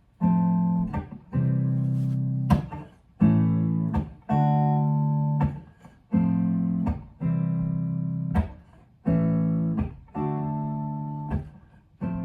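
Mule Mavis guitar strumming chords, about one strum a second. Each chord rings and fades before the next is struck, in an instrumental intro.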